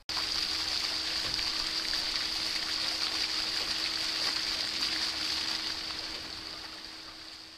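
Splash-pad water running and spraying: a steady rushing hiss, strongest in the high range, that starts abruptly and eases off gradually over the last couple of seconds, with a steady hum underneath.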